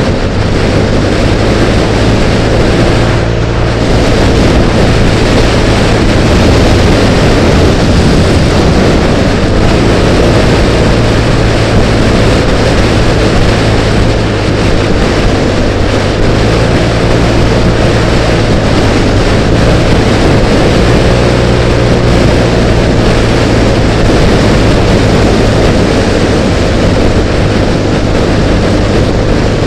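Motor scooter cruising at steady speed, heard from a helmet-mounted camera: a loud, steady rush of wind over the microphone with the engine's low drone underneath.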